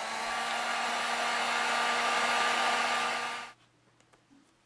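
Heat gun blowing hot air: a steady rush with a constant motor hum and whine, heating the screen edge to soften the adhesive. It switches off abruptly about three and a half seconds in.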